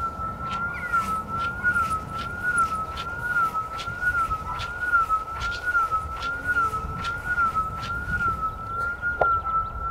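A single steady electronic tone from a Bluetooth speaker swung in circles on a rope, its pitch wavering up and down about once a second as it moves toward and away from the listener: the Doppler effect. The wavering settles back to one even tone near the end, over a low rumble and faint clicks.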